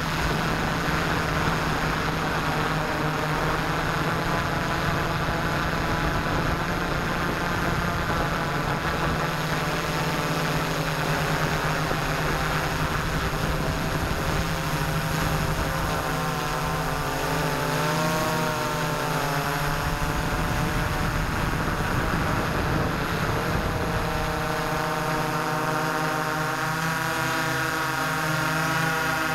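Multicopter's electric motors and propellers whirring steadily, heard through the camera mounted on the craft, under a constant rushing hiss. The motor tones waver in pitch a little past halfway, and a set of higher tones comes in near the end.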